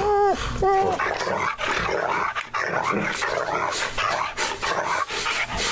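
A pack of dogs making dog noises all at once: sliding, whining cries in the first second, then a dense jumble of overlapping yips and growls.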